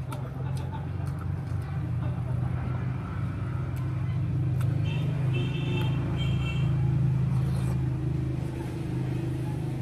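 A steady low engine rumble, like a motor vehicle running close by, swelling a little in the middle, with light clinks of a spoon and fork on a plate.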